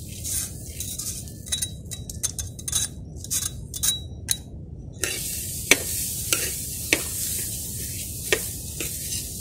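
Freshly washed, wet urad dal being scraped with a metal ladle from a wire-mesh strainer into a hot metal pan in short scratchy strokes. About five seconds in, a steady sizzle sets in as the wet dal starts to dry-roast, with a few sharp clinks of the ladle against metal as it is stirred.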